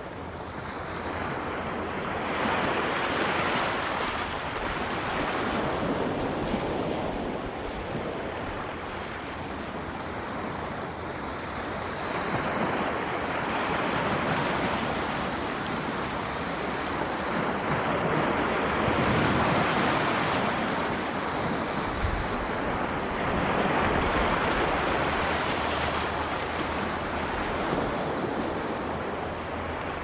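Sea waves breaking and washing in, a continuous rush of surf that swells and eases off every few seconds.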